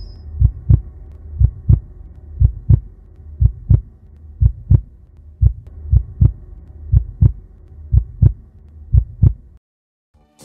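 Heartbeat sound effect: a steady double thump, about one beat a second, over a low hum, cutting off abruptly near the end.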